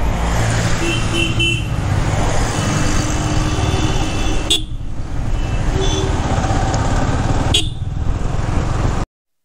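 Yamaha R15 V3's single-cylinder engine running under way, with wind rushing over the helmet-mounted action camera. Short horn beeps sound twice, about one and a half and six seconds in. The sound cuts off abruptly near the end.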